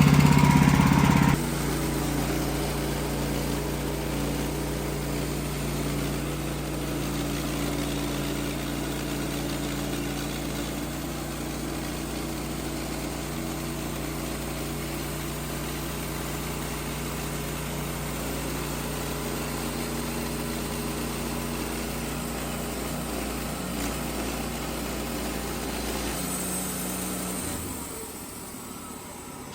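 Portable band sawmill's small engine running steadily with a low hum. About a second in, a louder sound drops away sharply, and near the end the engine's hum stops.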